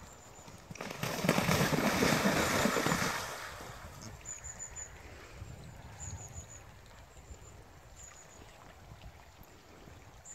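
Horse cantering into water, a loud rush of splashing from about a second in that lasts about two seconds and then fades.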